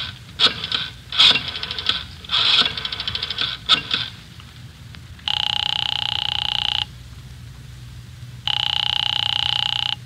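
Rotary telephone being dialled: several short whirring spins of the dial as it runs back. Then a telephone rings twice, each ring about a second and a half long, with a pause between.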